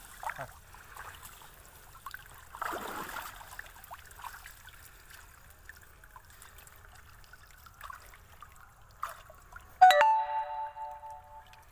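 Shallow water sloshing and trickling as a fishing net is gathered and worked through by hand, with a louder swell of splashing about three seconds in. Near the end a loud bell-like chime strikes and rings out for over a second.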